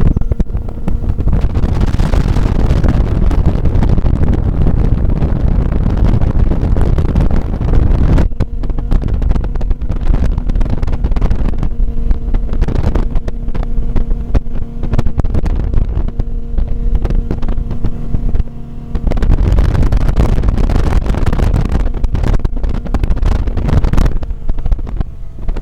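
US Marine 205 powerboat running under way: steady engine drone mixed with loud rushing of water and wind. For about ten seconds in the middle the wind and water noise drops back and a steady engine tone comes through clearly, before the heavy rushing returns.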